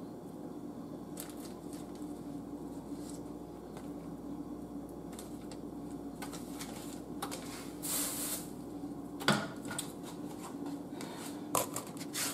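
Soft kitchen handling sounds from a knife slicing pats off a stick of butter and its wrapper crinkling, over a steady hum. A brief rustle about eight seconds in and a sharp knock about a second later.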